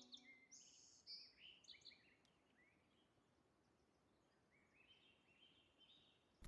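Faint birdsong: quick, high chirps in a flurry over the first two seconds and a few more near the end, over near silence. It ends with one short, sharp, loud noise.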